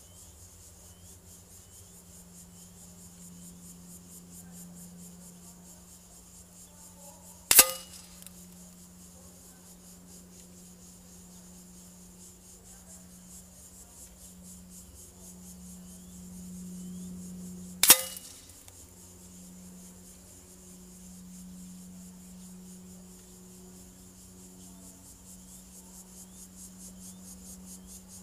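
Two shots from a PCP air rifle, sharp single cracks about ten seconds apart, each with a brief ringing tail. A faint steady hum runs underneath.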